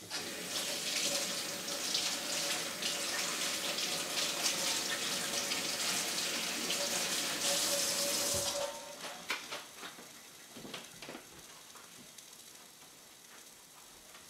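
Grouper steaks sizzling on an indoor smokeless electric grill: a steady hiss that falls away sharply about nine seconds in, leaving faint scattered pops and crackles.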